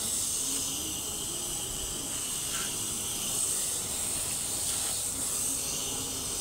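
Garden hose spray nozzle hissing steadily as a jet of water sprays across a screen door's mesh; the spray cuts off suddenly near the end.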